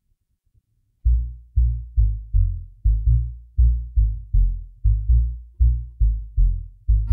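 Near silence for about a second, then a bass-heavy electronic beat comes in: a steady run of deep, booming drum hits, about two or three a second, with nothing higher above them.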